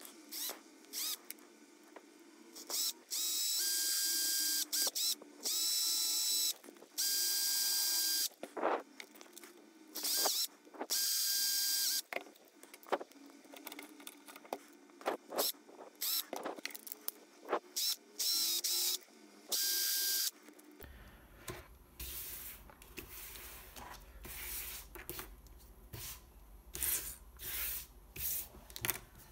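Cordless drill running in about half a dozen short bursts of a second or two each, with a steady whine, working on a 3D-printed plastic part. After about twenty seconds it stops, leaving scattered small clicks and taps of plastic pieces being handled.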